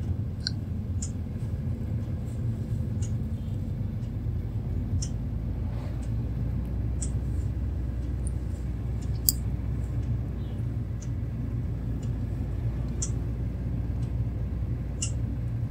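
Steady low road and engine rumble heard inside the cabin of a moving Suzuki hatchback, with faint short high-pitched ticks about every two seconds.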